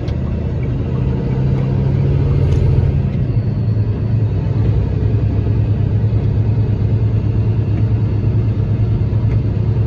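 Vehicle engine running steadily with a low road rumble while driving.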